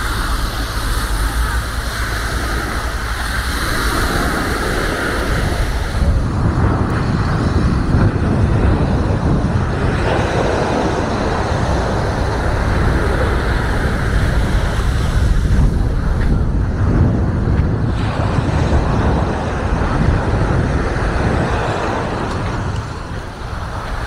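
Wind rumbling and buffeting on the microphone over a steady wash of beach noise with small waves breaking on the shore. The rumble grows heavier about six seconds in, and everything begins to fade near the end.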